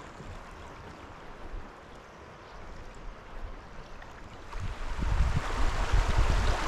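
River water running steadily, with wind starting to buffet the microphone about four and a half seconds in and getting louder.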